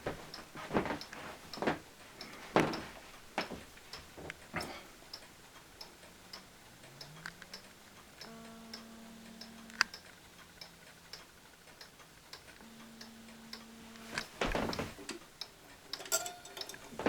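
Weight-driven clock ticking steadily, its ticks evenly spaced, with a few louder knocks in the first few seconds and again near the end.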